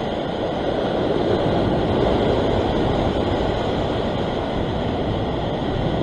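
Ocean surf surging and washing over a rock ledge: a steady rushing noise.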